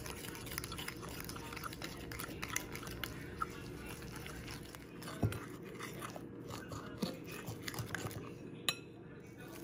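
A metal fork stirring flour into a wet batter in a glass mixing bowl: irregular scraping and clicking of the fork against the glass, with a few sharper knocks.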